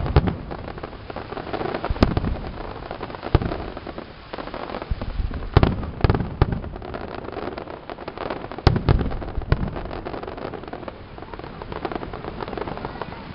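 Fireworks display: aerial shells bursting with sharp booms every second or few, over a steady crackling hiss from the burning and falling stars and ground fountains.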